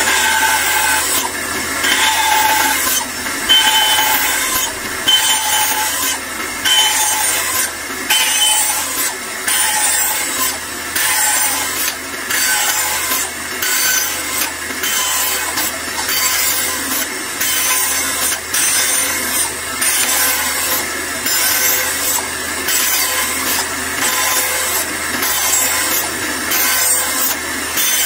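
Bandsaw running while its blade cuts a series of shallow slots into the end of a wooden dowel, one short cut after another.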